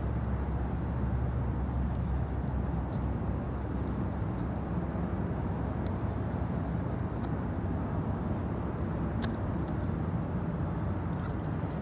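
Steady low outdoor background rumble, with a few faint clicks, the clearest about nine seconds in.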